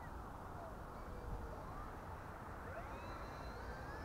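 Freewing electric RC model airplane flying past at a distance, its motor whine gliding up and down in pitch as it passes and turns. A steady low rumble of wind on the microphone runs underneath.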